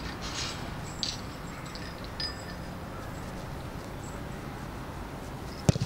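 Steady outdoor background noise with a few faint light taps, then two sharp knocks close together near the end.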